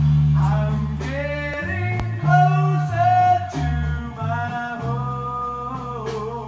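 Music: a voice singing a melody over guitar and a low bass line.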